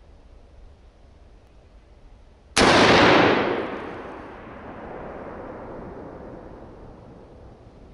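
A single scoped hunting rifle shot about two and a half seconds in, its echo rolling on and slowly fading for several seconds.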